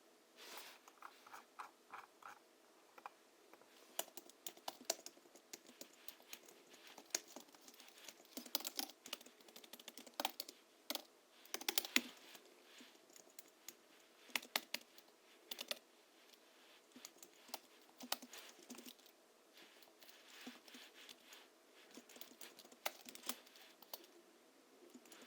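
Typing on a Hansung GHL-5X keyboard, modded with Krytox 103/107-lubed springs, 50 g rubber domes and a sound-absorbing sponge in the case. Keystrokes come in irregular runs with short pauses between them, and the hardest run of strokes falls near the middle.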